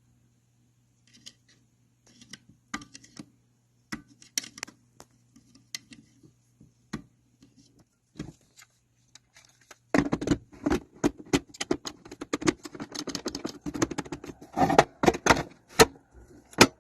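Hard parts of an espresso machine being handled: scattered sharp clicks and knocks over a faint steady hum, then from about ten seconds in, when the hum stops, a dense rattling clatter.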